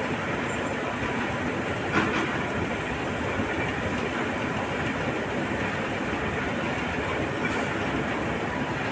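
Excavators and a wheel loader working a stockpile of iron ore pellets: a steady, dense rumble of engines and rattling material, with a single sharp knock about two seconds in.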